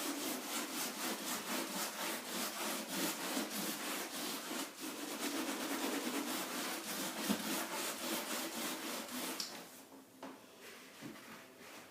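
Steel wool scrubbed back and forth over paint stripper on soft pine floorboards, in fast, even strokes of about three or four a second, lifting the softened paint; the scrubbing stops near the end.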